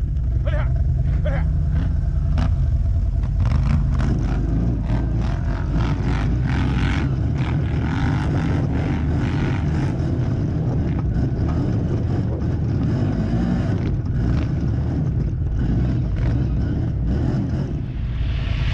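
Quad bike engine running steadily under load as it drives over rough ground, with frequent short knocks and rattles from the ride.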